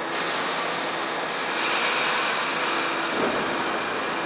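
New York City subway train at a station stop, with a sudden loud air hiss that starts at once and carries on steadily as the train begins to pull out. About a second and a half in the hiss grows louder and a high steady whine joins it.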